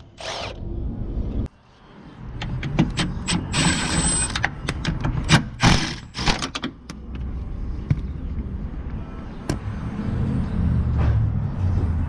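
Cordless impact driver hammering on car-body bolts in short bursts, with sharp metallic clicks and clanks of the socket and extension between runs. A steady low rumble takes over in the last few seconds.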